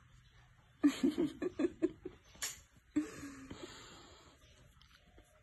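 A person laughing in a quick run of short bursts about a second in, followed by one short voiced sound a moment later.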